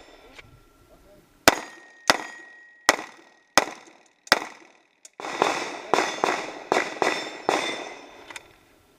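A string of pistol shots at steel targets: five spaced shots, each followed by a ringing tone from the struck steel, then a quicker run of about eight more shots that stops near the end.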